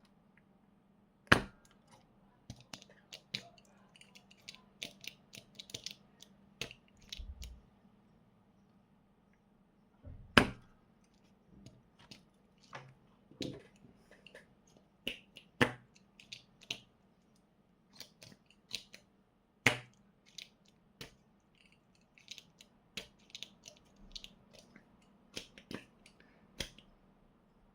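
Irregular sharp clicks and taps of small hand tools and parts being handled on an electronics workbench, a few louder knocks among many light ticks, over a faint steady hum.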